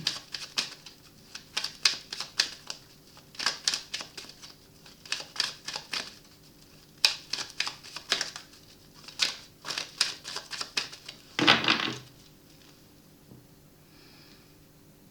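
Tarot cards being handled: a run of short, irregular clicks and taps, then a denser rustle of the deck lasting about half a second, about eleven seconds in.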